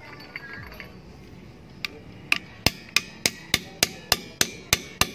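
Locking pliers used as a hammer, tapping on a steel socket that serves as a driver for a motorcycle front fork oil seal. About eleven sharp metal knocks at an even pace, roughly three a second, starting about two seconds in.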